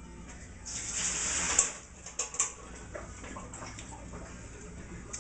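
A utensil scraping inside a small aluminium pot for about a second, then a sharp metal clink followed by two lighter clinks and a few small ticks.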